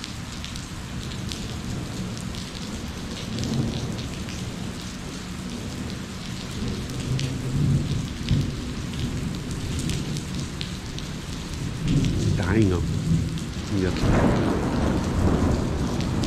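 Steady rain falling, with scattered ticks of single drops. Thunder rumbles in under it and grows louder from about twelve seconds in.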